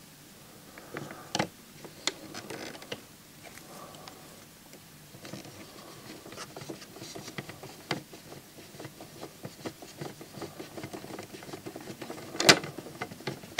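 Light handling of a CD player's plastic disc-loading mechanism by hand: scattered small plastic clicks and rattles, with one sharper click near the end.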